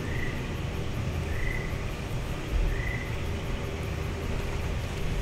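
Background ambience with no voice: a steady low rumble, and a short high chirp that repeats about every one and a half seconds.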